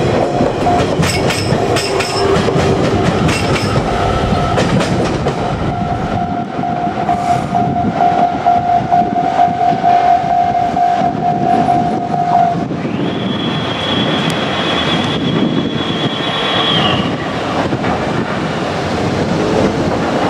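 JR Kyushu 817 series electric train passing, its wheels clacking over rail joints in the first few seconds. A steady tone holds for about twelve seconds, then a higher tone sounds for about four seconds.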